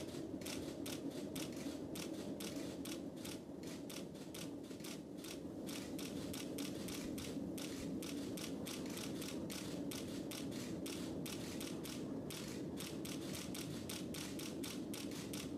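Ariane 5 rocket in powered climb, heard from the ground: a steady low rumble with dense, irregular crackling from its two solid rocket boosters and Vulcain main engine.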